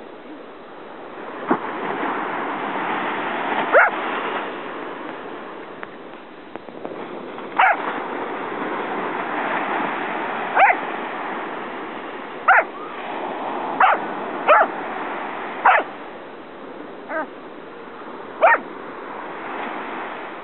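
Pembroke Welsh corgi barking in short, sharp yaps at a ghost crab, about ten of them at uneven intervals, bunched closer together in the middle. Under them runs a rushing background hiss that swells and fades.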